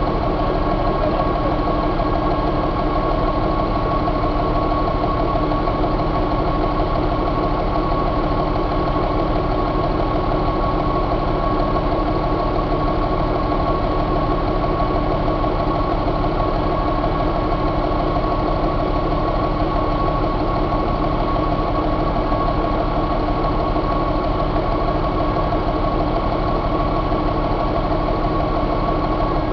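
2006 Hino J08E inline-six diesel engine idling steadily in the truck, with a constant high whine over the running.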